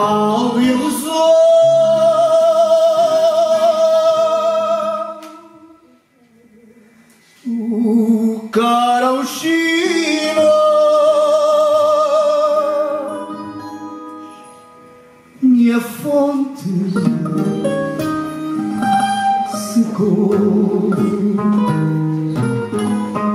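Male fado singer singing long held phrases with vibrato into a microphone, accompanied by a Portuguese guitar and a classical guitar. The music drops almost to silence about six seconds in before the next phrase begins.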